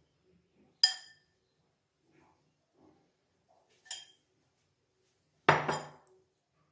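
A metal spoon clinks against a glass bowl of paneer stuffing, two sharp strikes that ring briefly. Near the end comes a louder, fuller clatter as the bowl is put down on the counter.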